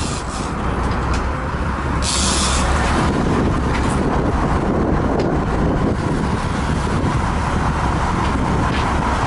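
Sportfishing boat's engines running with a steady low rumble under wind and water noise, with a short high hiss about two seconds in.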